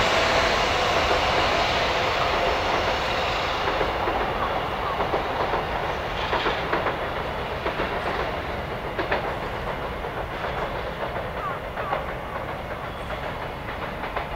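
Sanyo Shinkansen train moving away, its rumble fading steadily, with a scattering of sharp wheel clacks about halfway through.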